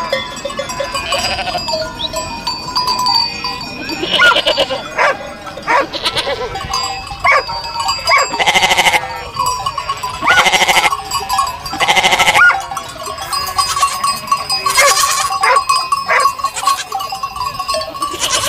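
A large flock of sheep bleating, with many calls overlapping. Several loud, drawn-out close bleats come in the middle stretch.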